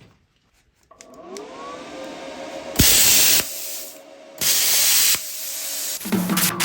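Plasma cutter starting up with a rising whine that settles into a steady hum over hissing air, then firing two short, loud hissing bursts as the cutting arc is struck. Music comes in near the end.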